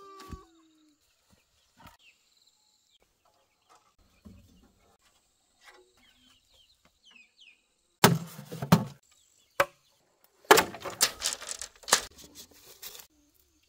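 Chickens clucking, with a rooster's crow trailing off at the very start and a faint steady high whine behind them. Loud clusters of sharp knocks and cracks come about eight seconds in and again from about ten and a half to thirteen seconds.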